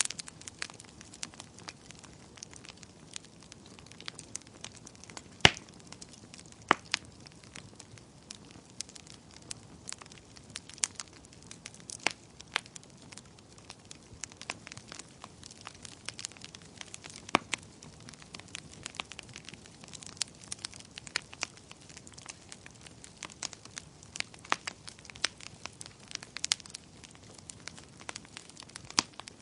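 Wood fire crackling: frequent sharp pops and snaps over a soft steady hiss, with a louder snap about five and a half seconds in and another a second later.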